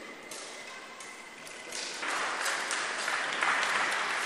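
A crowd bursts into applause about two seconds in and keeps clapping, louder than the faint tapping before it.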